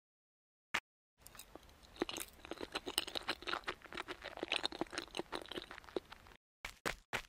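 Eating sound effect: rapid, irregular crunching and chewing that starts about a second in and stops shortly before the end, followed by a few separate clicks.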